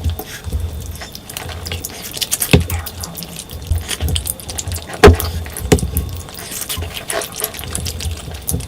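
Close-miked wet chewing and eating sounds of a mouthful of curry and rice, with irregular smacks and clicks; the loudest comes about five seconds in.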